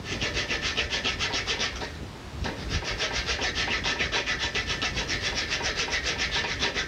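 Small round file rasping back and forth in a shallow string-nock groove cut into the tip of a hickory bow, in rapid, even strokes with a brief pause about two seconds in.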